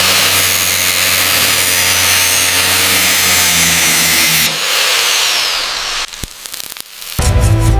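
Power tool grinding with a loud, steady hiss and a low motor hum for about four and a half seconds. It then drops to quieter scraping and a few clicks, and music comes back near the end.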